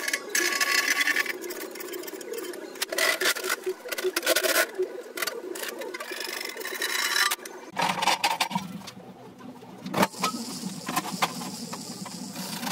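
Sheet steel clanking and rattling as it is bent by hand on a homemade bending brake, with irregular metal knocks and scrapes. About two-thirds of the way through the sound changes and a steady low hum comes in under the knocks.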